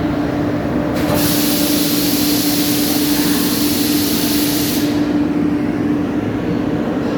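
Single-head CNC router with a 12-tool changer running, its spindle giving a steady pitched hum. A loud hiss joins it from about a second in and stops suddenly about five seconds in.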